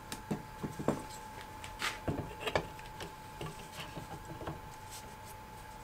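Irregular light clicks and knocks as a Harbor Freight angle grinder with its cutting guide is handled and set down against a yardstick on a steel strip; the grinder is not running. A faint steady tone runs underneath.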